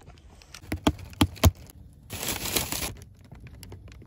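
Handling noise on the phone's microphone: a few sharp knocks and taps, then a rustle about two seconds in, followed by faint small clicks.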